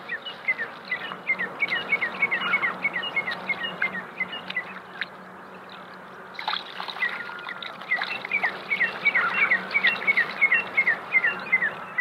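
A bird calling in fast runs of short, falling chirps, three or four a second, in two bouts with a short pause in between. Water splashes and drips as spring onions are swished in a pot of water.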